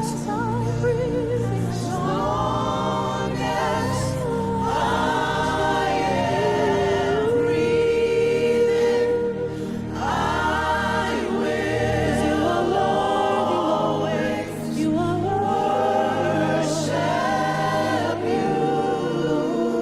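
Gospel worship music: a choir or congregation singing a slow, wordless or unclear melodic line over a sustained low instrumental accompaniment.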